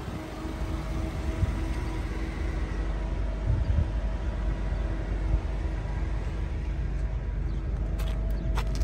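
Car engine idling steadily: a low rumble with a constant hum. A few sharp clicks come near the end.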